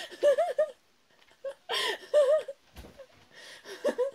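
A woman giggling in three short bouts of laughter.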